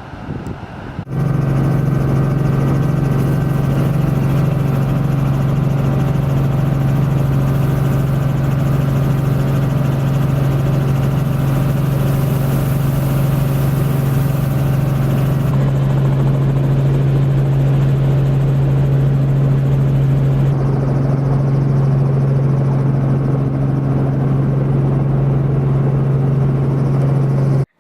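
Helicopter in flight: a loud, steady drone with a strong low hum and a dense steady whine above it. It starts abruptly about a second in and cuts off just before the end.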